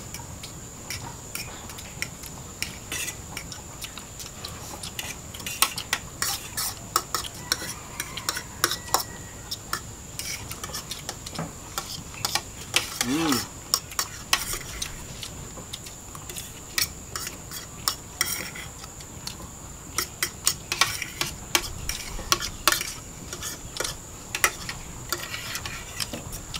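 Spoons and forks clinking and scraping on ceramic plates while eating, in many irregular sharp clicks, over a faint steady high whine.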